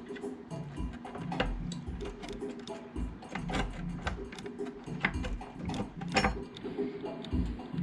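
Background music with a repeating bass line and light, ticking percussion.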